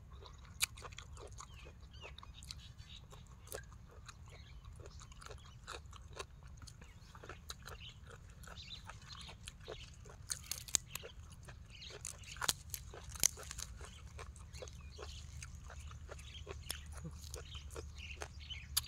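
Close-up eating sounds: chewing and crunching of papaya salad and raw vegetables, with wet mouth clicks throughout. A few sharper crackles about ten to thirteen seconds in as a lettuce leaf is torn by hand, over a steady low rumble.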